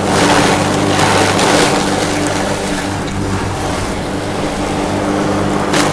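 Universal feed crusher with 22 blades running under its motor with a steady hum, grinding fodder fed into it. The grinding noise surges through the first two seconds and then evens out, and there is a single sharp knock near the end.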